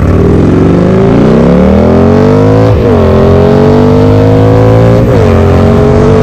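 Harley-Davidson Roadster's air-cooled V-twin, bored to 1275cc with a Hammer Performance kit and running a Cobra exhaust, accelerating through the gears. The engine pitch climbs, drops with an upshift about three seconds in, climbs again, drops with a second upshift about five seconds in, then runs steady.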